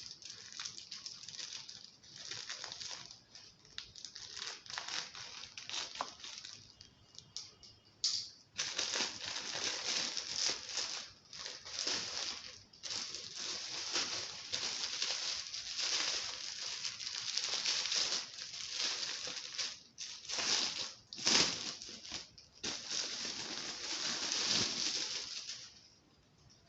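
Plastic courier cover and packaging crinkling and rustling in irregular bursts as a parcel is opened and handled; the rustling stops near the end.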